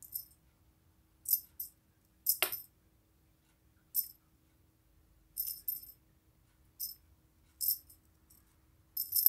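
Small jingle bell on a cat toy jingling in short, bright shakes about once a second as a cat paws and bats at it, with a soft knock about two and a half seconds in.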